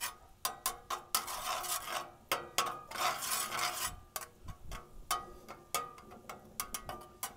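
A metal spatula scraping and clicking against a cast iron skillet as minced garlic is stirred in melted butter, in quick irregular strokes.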